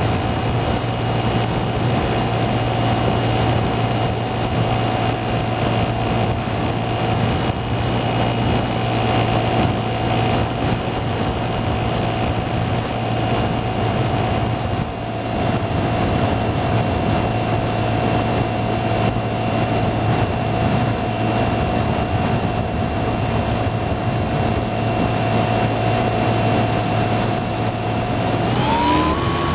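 Electric motor and propeller of a Skywalker FPV model plane running steadily in flight, a constant whine over rushing air noise. Near the end the whine rises sharply in pitch as the throttle is opened up.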